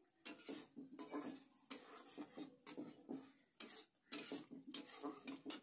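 Metal spatula scraping and stirring masala as it fries in a metal kadhai, in short scrapes nearly two a second.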